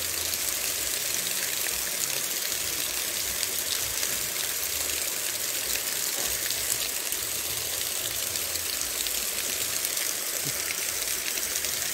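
Stream water spilling over a small concrete weir and splashing into a shallow pool, a steady rushing with no let-up.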